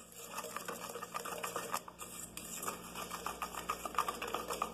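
A utensil beating egg and sugar in a stainless steel pot, with quick, irregular scraping and clicking against the metal.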